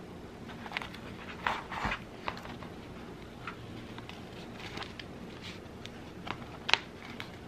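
Scattered scrapes and sharp clicks as a stiff backing board is worked under the tabs of a cheap plastic picture frame and the frame is handled, with the loudest click a little after two-thirds of the way through.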